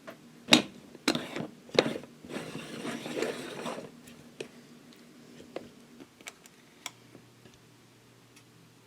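Three sharp knocks in the first two seconds, then a second or so of rustling clatter, then a few scattered small clicks: objects being handled.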